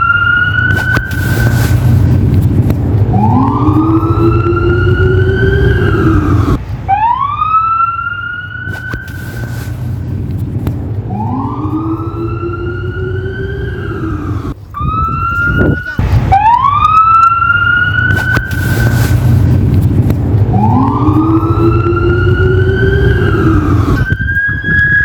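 American emergency vehicle sirens wailing: a tone that climbs and then holds before cutting off, repeating about every three to four seconds, with a lower siren tone rising alongside it. A steady low rumble runs underneath.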